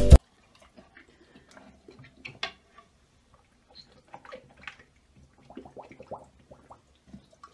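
A dog with its muzzle in toilet-bowl water, blowing bubbles: faint, scattered small splashes and gurgles.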